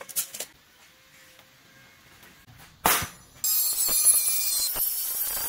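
A few light clicks, a single knock about three seconds in, then an angle grinder with a cutting disc cutting through sheet steel: a loud, steady, high-pitched whine that starts abruptly about half a second later.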